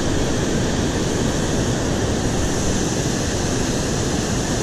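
Steady rush of water pouring over a river dam's spillway.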